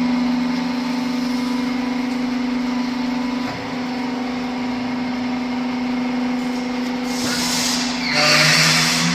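Hydraulic baling press running, its pump motor giving a steady hum. About seven seconds in, a loud hiss starts and carries on to the end.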